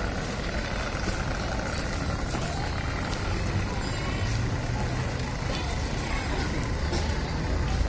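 Outdoor city ambience: a steady low rumble of traffic under a general hubbub of a crowded public square.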